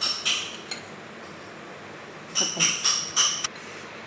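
Kitchen utensils clinking against a vessel with a light ringing tone: a few clinks at the start, then a quick run of about five around the middle.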